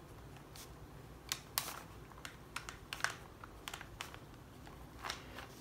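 Ballpoint pen writing numbers on paper on a clipboard: faint, irregular little ticks and scratches of the pen strokes.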